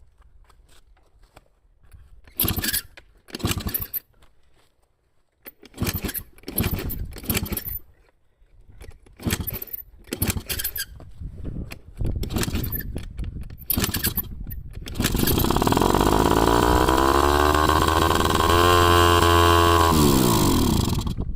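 Honda Live Dio scooter's 50cc two-stroke engine being cranked in four short bursts of attempts, then catching about fifteen seconds in and running, revved so its pitch rises and then falls before dropping away near the end. The engine that would not start finally fires.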